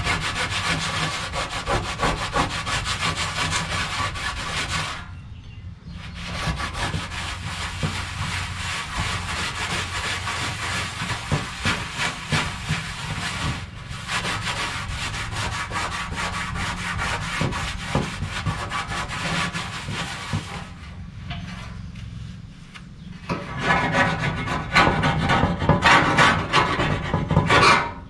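A solvent-soaked rag scrubbed hard back and forth over old bitumen underseal on a steel inner fender panel, with a few short pauses. Near the end the scrubbing gives way to a louder, harsher scraping as a scraper is pushed over the underseal.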